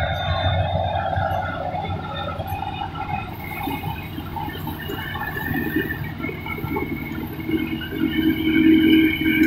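Kubota DC-35 rice combine harvester running as it cuts and threshes rice: a steady engine and machinery drone carrying a whining tone that grows louder in the second half.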